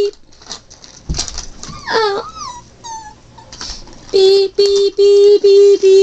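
A voice making fight sound effects: a thump about a second in, a falling whine near two seconds, then a fast run of loud, short, even-pitched bursts, about four a second, from about four seconds in.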